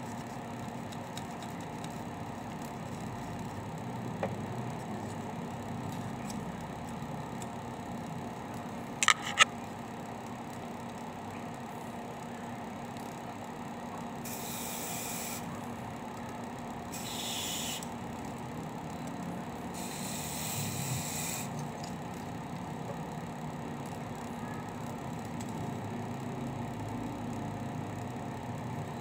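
Three short hisses of contact cleaner lubricant sprayed from an aerosol can through its straw into a laptop CPU fan's hub, lubricating the bearing to cure a noisy fan. A steady low hum runs underneath, and two sharp clicks come a little before the spraying.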